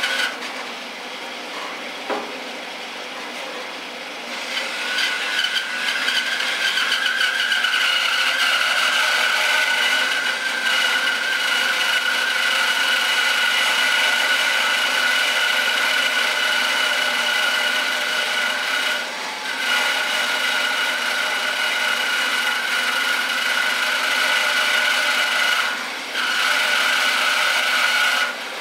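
Bandsaw running with its blade cutting through a thick wooden block: a steady whine over a rasping cut. It grows louder about five seconds in and dips briefly a few times as the cut goes on.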